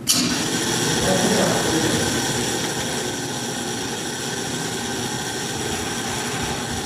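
Telescope and observatory machinery running with a steady mechanical whir and a high-pitched whine over it. It starts abruptly.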